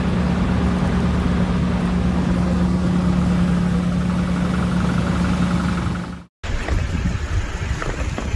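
Vehicle engine idling with a steady hum. About six seconds in it cuts off sharply, and rough wind noise buffeting the microphone follows.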